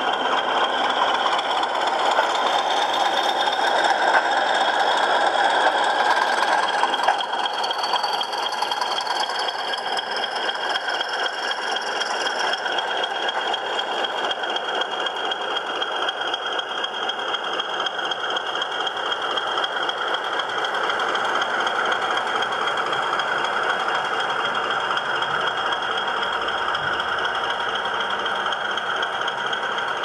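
LokSound XL v4.0 DCC sound decoder in an O gauge class 20 diesel model, playing the English Electric diesel engine running steadily through the loco's small speaker, with a high whine rising briefly in the first third. The wheels rattle over the model track as the loco moves.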